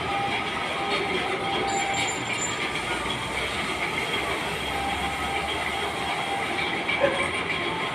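Steady, dense mechanical clatter of power looms running in a weaving shed, with one sharp knock about seven seconds in.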